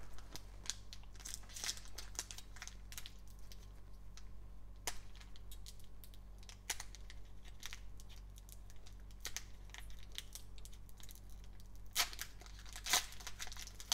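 Foil wrapper of a Panini Select basketball card pack crinkling and tearing as gloved hands pull it open: a run of sharp crackles, the loudest two near the end.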